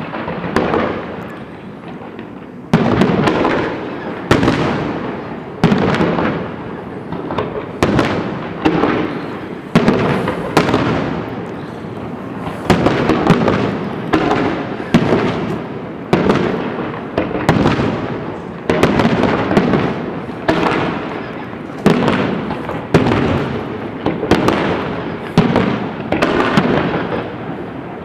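Fireworks display: shells bursting one after another, a loud bang about every second, each dying away in a fading echo.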